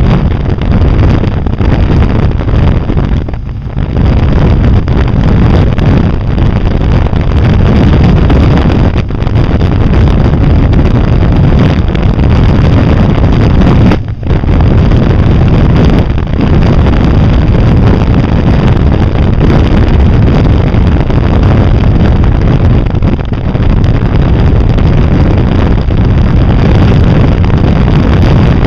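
Wind buffeting the microphone of a camera mounted on a moving Can-Am, mixed with the machine's engine and road noise at steady cruising speed. The rush is loud and steady, dropping briefly twice.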